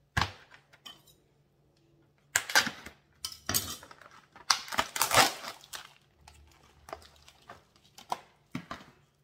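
The plastic film being peeled off a tray of ground chicken breast, then the plastic tray scraping and knocking against a nonstick pot as the meat is tipped in. It comes as several short, noisy bursts, the loudest about halfway through.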